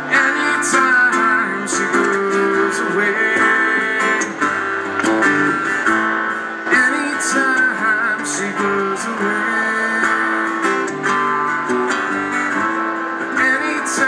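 Two acoustic guitars strumming and picking together, playing a passage of a song without words.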